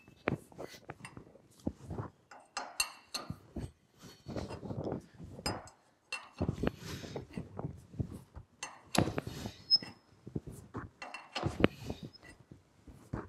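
Morse taper No. 5 reamer turned by hand with a wrench, giving short scraping cuts and metallic clinks as the wrench is shifted between strokes. The reamer is cutting evenly all the way around the bore.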